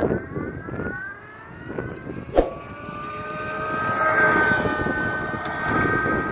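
Electric e-bike motor whining, its pitch rising over the first second or so and then climbing slowly and holding steady as it runs, over rough rolling noise. A sharp click comes about two and a half seconds in.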